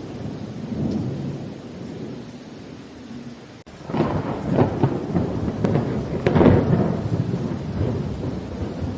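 Thunder rolling over steady rain. About four seconds in, a closer peal of thunder breaks with several crackling peaks, then rolls away.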